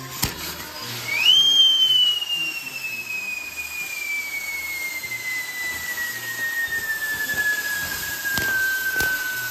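Burning fireworks castle: a pyrotechnic whistle starts about a second in with a quick upward swoop, then holds one long whistle that slowly falls in pitch. Under it runs a steady hiss of burning fireworks, with a few sharp pops.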